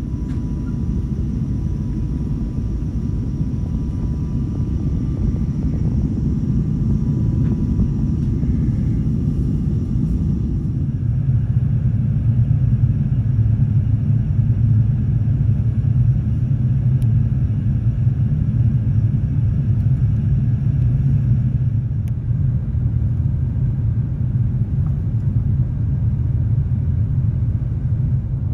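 Steady low rumble of an Airbus A350-900's cabin in descent: airflow and engine noise heard from a seat. About 11 seconds in it grows louder and deeper.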